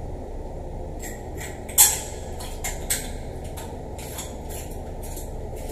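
A few small metallic clicks and scrapes from a shower valve being fitted back onto its wall stem by hand, the sharpest about two seconds in, over a steady low hum.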